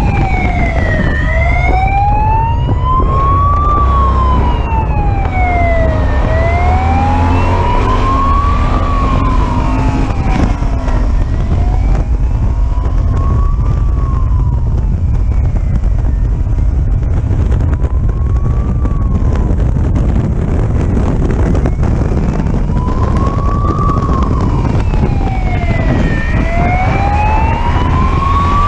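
Police car siren in a slow wail, rising and falling about every five seconds, over a steady low rumble of engine and road noise. The wail grows fainter around the middle and comes back strong near the end.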